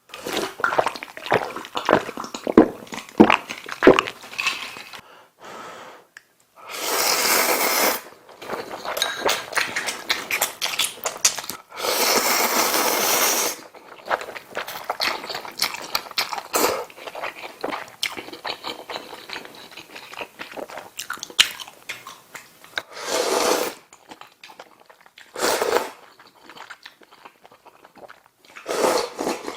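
Close-miked eating: clicks of utensils and wet chewing, broken by loud slurps of ramen noodles from kimchi stew, two long ones lasting a second or more and several shorter ones near the end.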